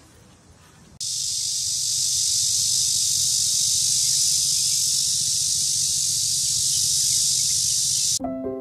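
A steady, shrill insect chorus: a loud, even high-pitched drone without a beat. It starts abruptly about a second in and cuts off near the end, where piano music begins.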